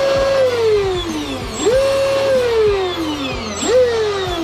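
Electric motor of a Volantex Vector SR80 RC speedboat revved in short bursts out of the water: each time it spins up quickly to a high whine, holds, then winds down slowly as it coasts. This happens three times, over background music.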